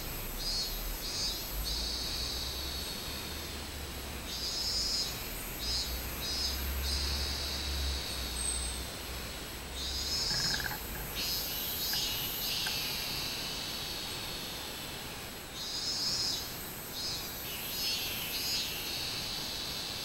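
Robust cicada (minmin-zemi, Hyalessa maculaticollis) singing: a few pulsed notes followed by a longer drawn-out buzz, the phrase repeating every five to six seconds.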